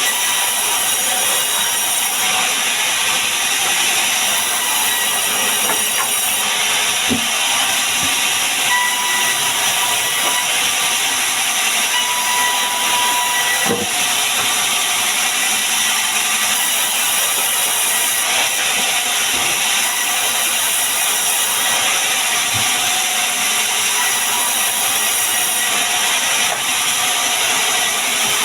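Power tool working wood, running steadily with a loud even hiss and a few faint knocks.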